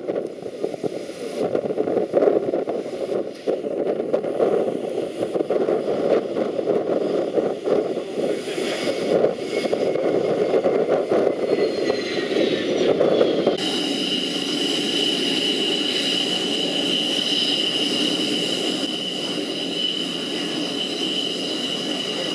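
Twin-engine fighter jet's engines running as it taxis, a steady rumble with a high whine; the whine slides down in pitch about 12 seconds in and then holds steady.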